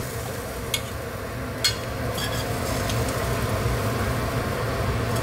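A metal spoon clinks and scrapes against a stainless steel pan about four times in the first three seconds, one clink louder than the rest, while the fried garlic and chili relish is spooned out. Underneath runs a steady low hum with a faint hiss.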